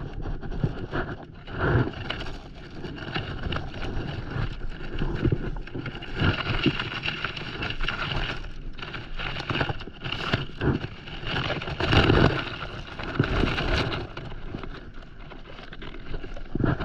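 Gear being handled on an inflatable paddleboard: rustling and scraping of a dry bag, a plastic bucket and rope, with irregular knocks and a heavier thump about two-thirds of the way through.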